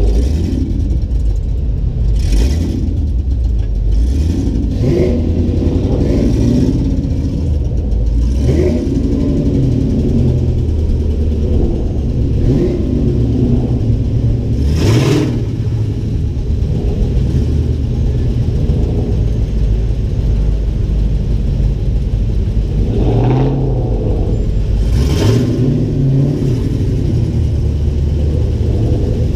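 Ford Mustang's engine running close by at low speed, a steady low rumble whose pitch rises and falls with the throttle. A few brief rushing swells of noise come through, about 15 and 25 seconds in.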